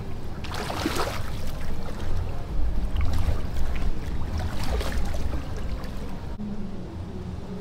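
Water splashing from a small boat being paddled, with irregular strokes about a second in and again near five seconds, over a steady low rumble.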